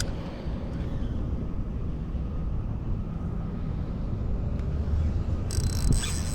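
Wind rumbling on the microphone. High chirping calls start about five and a half seconds in.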